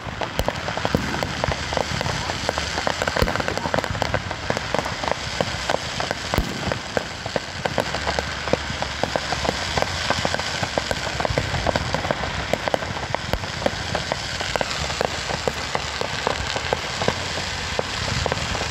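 Fireworks finale: a dense, continuous crackling of many small pops running together like heavy rain, with louder bangs standing out every few seconds.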